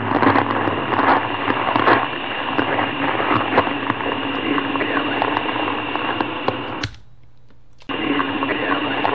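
Footsteps crunching on gravel, heard through the steady hiss of an old tape recording; about four seconds in, the crunching stops as the walkers move onto grass. Near the end, the recording drops out for about a second, with a click at its start and at its end.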